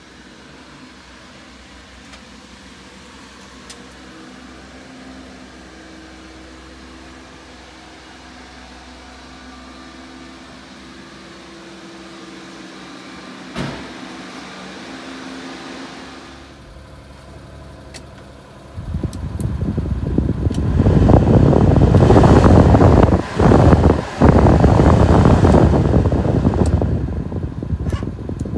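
Suzuki Carry truck's heater/A/C blower fan switched on and stepped up, air rushing loudly out of the dash vents, with two short breaks. Before it, a low steady hum with a single knock.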